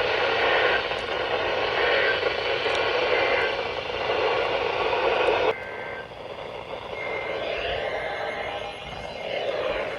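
Weather radio receiver hissing with static. The static drops abruptly a little past halfway, leaving a fainter hiss with faint wavering tones in it.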